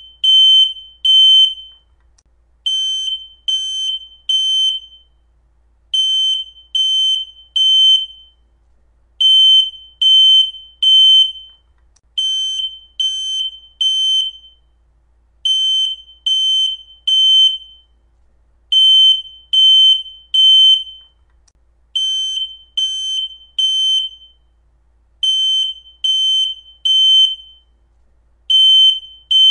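Piezo smoke alarm sounding its full alarm: loud, high-pitched beeps in groups of three, each group followed by a short pause, repeating about every three seconds. This is the standard temporal-three evacuation pattern, not a low-battery chirp.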